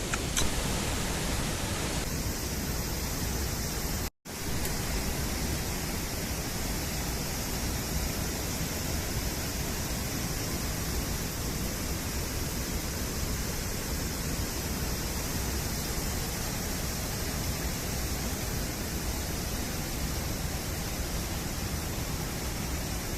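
Steady rushing noise, even across low and high pitches. It drops out to silence for a moment about four seconds in.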